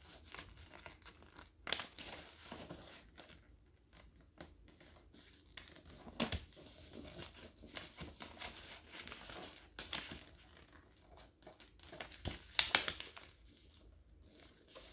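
A sheet of paper being folded and its creases pressed flat by hand on a tabletop: irregular soft rustles, the loudest a little before the end.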